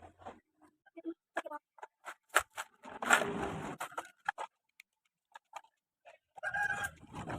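Scattered clicks and knocks of plastic toy vehicles working in sand, with a rush of sand pouring about three seconds in. A chicken clucks near the end.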